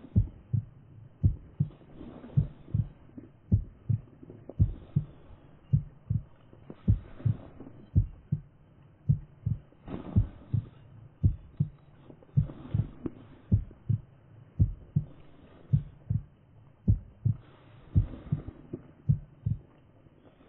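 A steady low beat like a heartbeat sound effect, about two dull thuds a second, laid over the footage as a suspense effect.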